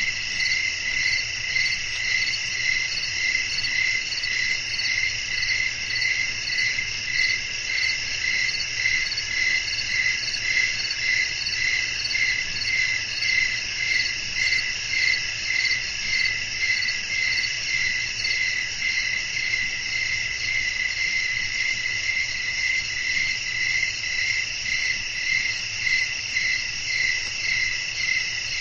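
Night chorus of crickets chirping, several overlapping high-pitched trills pulsing in a steady, even rhythm.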